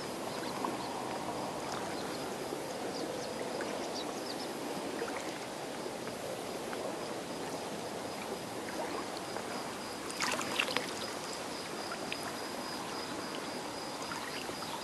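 Shallow seawater washing steadily around the feet, with a short cluster of small splashes or clicks about ten seconds in.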